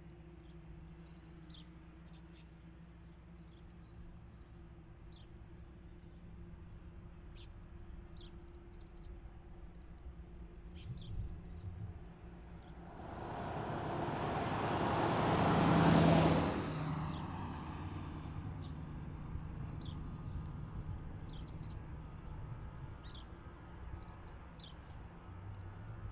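Jet airliner taking off: the engine noise swells over a few seconds to a peak about two thirds of the way through, then fades away. A steady low hum runs underneath, with faint high chirps.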